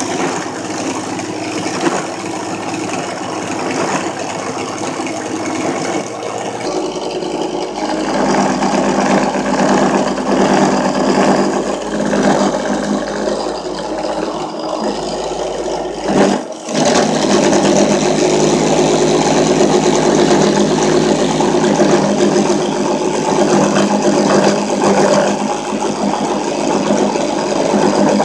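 Drill press spindle running fast with an end mill cutting plastic cutting-board material: a steady machine sound that grows louder about eight seconds in and drops out briefly just past halfway.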